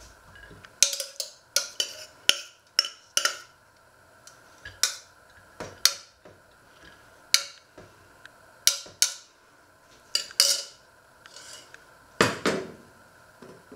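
Metal spoon clinking and scraping against a stainless steel pot as food is spooned out onto a plate, in a dozen or so sharp, irregular clinks. Near the end comes one heavier knock as the pot is set back down on the hob.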